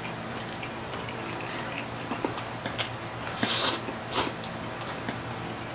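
Close-up eating sounds: a few sharp crunching and smacking sounds and a noisy slurp of pancit noodles about three and a half seconds in, over a steady low hum.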